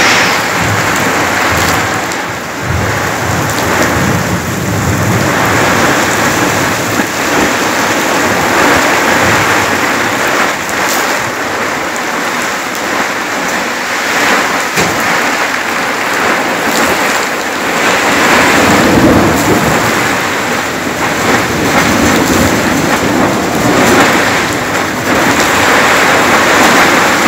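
Heavy thunderstorm rain pouring steadily, with thunder rumbling in the low end that swells and eases.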